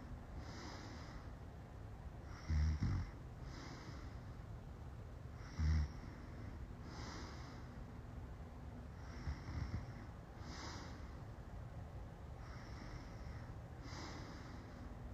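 A woman snoring while passed out drunk. Her slow, rasping breaths come in pairs about every three and a half seconds, with loud, low snorts twice in the first six seconds and a softer one past the middle.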